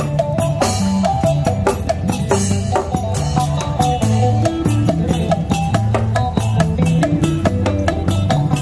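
Isaan folk music played live by a street band: a phin lute picking a melody over an electric bass line and a small drum kit keeping a steady beat.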